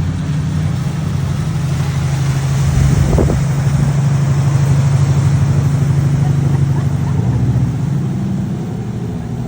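A motor vehicle's engine running with a steady low hum over road or wind noise, its pitch shifting slightly about seven seconds in.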